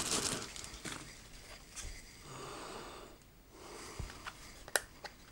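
Quiet handling of a Blu-ray player's remote control: the plastic wrapping rustles faintly and dies away within the first second, followed by a few soft hushing noises and one sharp click near the end.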